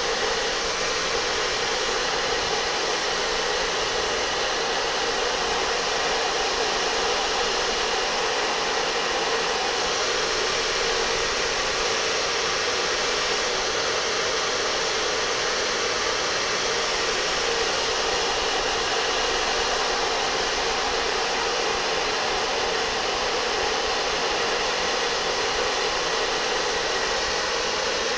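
Steady rush of air from a blower aimed at a long-sleeved cotton T-shirt, the fabric fluttering in the airflow. The blowing noise stays even throughout.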